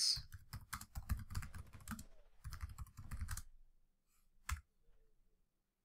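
Typing on a computer keyboard: a quick run of keystrokes for about three and a half seconds as a command is entered, then a single louder key press about a second later, the Enter key.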